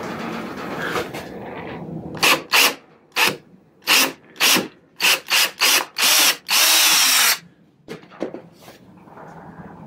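Power drill with a screwdriver bit driving a wood screw into a wooden corner block, run in about ten short trigger bursts and a final longer run of about a second that stops suddenly. A few light clicks follow.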